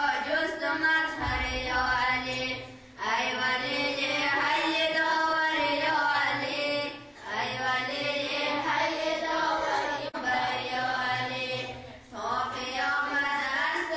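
A voice chanting devotional verses in long melodic phrases, with short breaks for breath about every three to four seconds.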